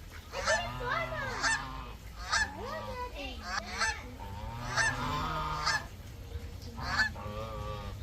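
Geese honking, a call about every second, with loud harsh honks standing out near the middle and about seven seconds in.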